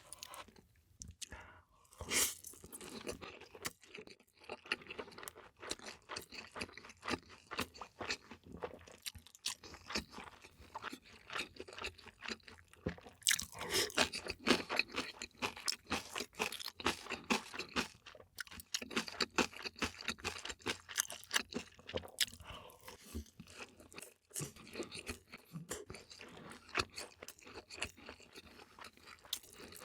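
A person chewing and crunching food close to the microphone, with many irregular small crunches and a few louder bites.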